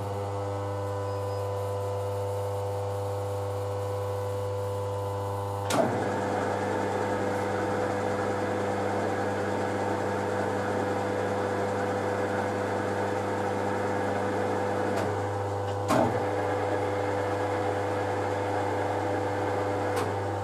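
Rotary phase converter running with a steady, somewhat noisy electrical hum. About six seconds in, a clunk marks the Harrison M300 geared-head lathe's spindle starting, and gear noise rises over the hum. It eases off with another clunk around sixteen seconds, and a further click comes near the end.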